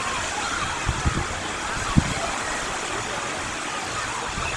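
Beach ambience: a steady wash of sea surf with faint distant voices, and a few short low thumps about one and two seconds in.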